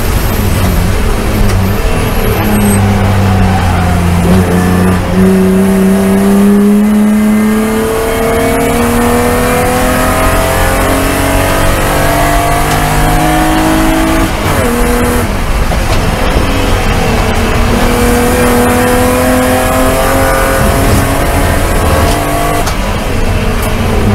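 In-cabin sound of a BMW E36 Spec3 race car's inline-six under full throttle. The revs climb steadily, drop at an upshift about 14 seconds in, climb again, and drop at another shift near the end.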